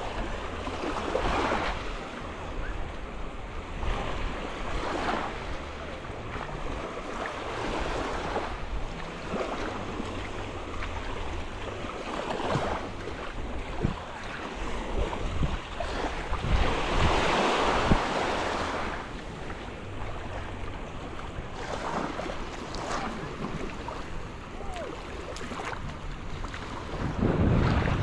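Small ocean waves breaking and washing up onto a sandy beach, one surge every few seconds, the biggest a little past halfway, with wind rumbling on the microphone.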